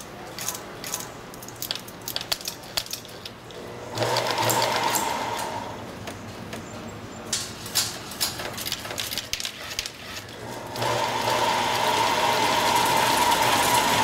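Wiring-harness taping machine with a rotating tape head, run by foot pedal: it starts about four seconds in and runs with a steady tone for a couple of seconds, stops, then starts again near the end and keeps running. Irregular clicks and rattles of the harness and machine parts being handled fill the pauses.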